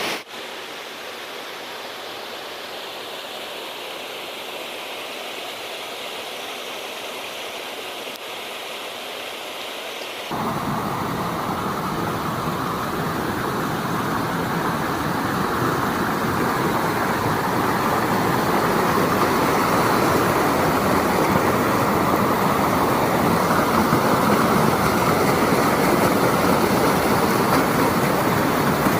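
Steady roar of rushing water from a waterfall and river. About ten seconds in it cuts to a louder, fuller rush that slowly swells.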